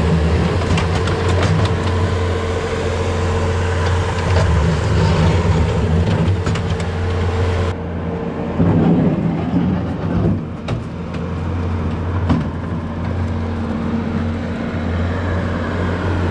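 Farm machine's engine running steadily close by, a deep hum with a higher tone on top that drops out about eight seconds in, as the machine works in the barn alleyway.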